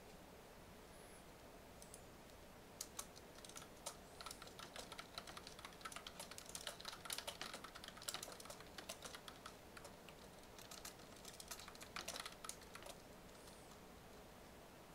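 Computer keyboard typing in quick runs of keystrokes. It starts about three seconds in and stops a couple of seconds before the end.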